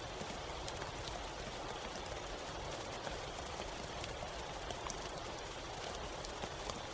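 Steady rain falling, a continuous even hiss with many individual drops ticking sharply on a surface at irregular intervals.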